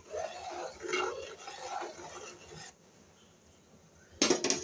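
Metal spoon stirring spiced jaggery syrup in a steel pot, scraping against the pot, then two sharp metal clanks near the end as the spoon knocks the pot.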